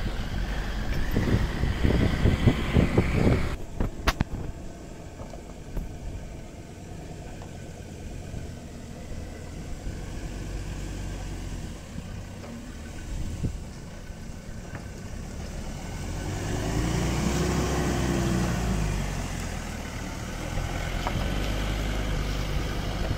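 Ford Ranger pickup's engine running as it crawls slowly over a rocky dirt track, its note rising and falling as it passes close by about two-thirds of the way through. The first few seconds hold louder, irregular rumbling that stops abruptly.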